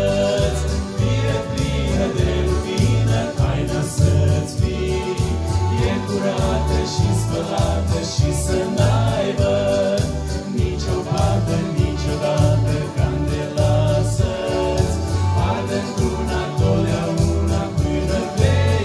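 A male vocal group singing a Christian song together into microphones, in several voices, over an accompaniment with a steady pulsing bass.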